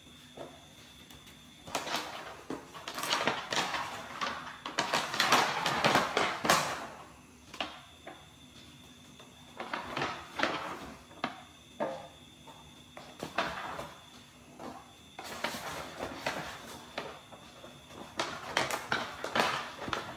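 Rustling and clicking of items being handled, in bursts a few seconds long with quieter gaps between.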